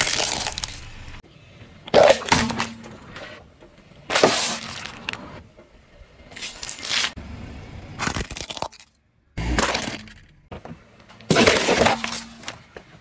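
A car tyre rolling over and crushing a string of objects, a plastic toy and wrapped packages among them. About seven short bursts of cracking, crunching and breaking come one every couple of seconds.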